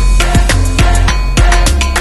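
Background music with a steady, fast drum beat and heavy bass.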